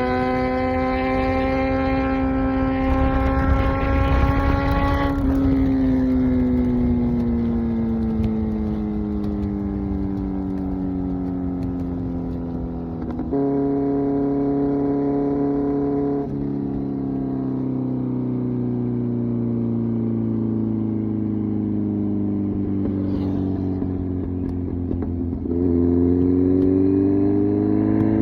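Kawasaki Z900's 948cc inline-four engine through an SC Project exhaust, riding: the revs climb for the first few seconds, then wind down on a closed throttle. About halfway the revs jump up sharply and hold briefly before falling again, and near the end they jump once more and climb as it accelerates.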